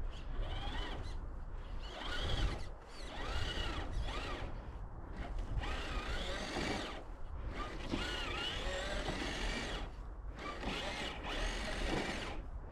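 Electric motor and gear drivetrain of a 4x4 RC crawler truck whining in bursts, its pitch rising and falling with the throttle, as it claws up a snowy slope with all differentials locked.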